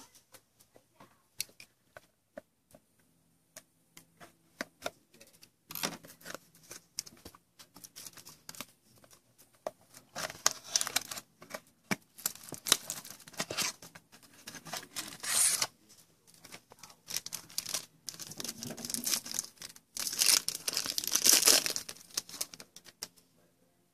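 Foil wrapper of a 2014 Topps Museum baseball card pack being torn open and crinkled by hand. A few light handling clicks come first, then several bursts of tearing and crinkling, the loudest near the middle and toward the end.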